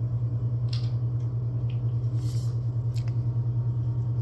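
A steady low mechanical hum with a fast, even pulse, with a few faint clicks and a brief soft rustle about two seconds in.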